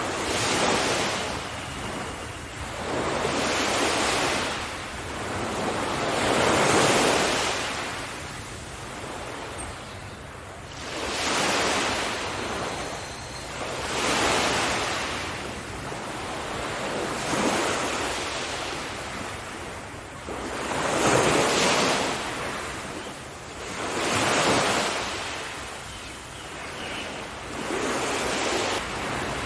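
Ocean waves breaking on the shore, one surge of surf swelling and washing back every three to four seconds.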